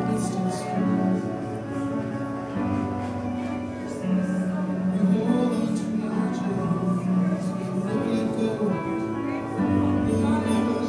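Live worship band playing a slow song, with sustained keyboard chords and electric guitar that change every second or two.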